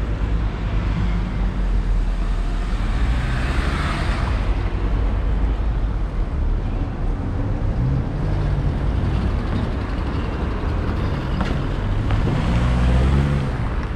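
Street traffic with cars passing on the road: one goes by with a rise and fall of tyre noise a few seconds in, and a car engine hums close by near the end.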